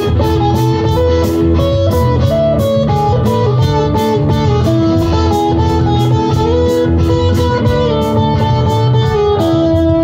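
Live band music led by electric guitars: a line of held and moving notes over a steady beat.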